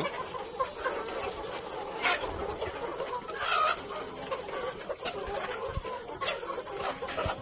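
A flock of young Australorp chickens, about 100 days old, clucking and chattering steadily, with a few louder calls standing out about two, three and a half, and six seconds in.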